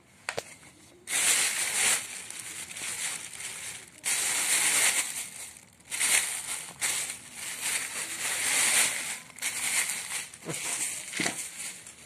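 A clear plastic bag crinkling and rustling as hands handle it, in several long bursts with short breaks between.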